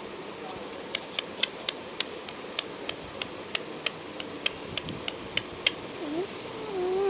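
A run of sharp, irregular clicks, about three a second, then near the end a short whining call that bends up and down in pitch.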